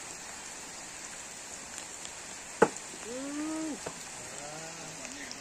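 Steady rain hiss. A sharp tap comes about two and a half seconds in, then two brief pitched calls that bend in pitch near the end.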